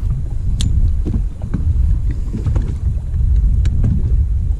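Wind buffeting the microphone in a loud, uneven low rumble, with a few faint light clicks over it.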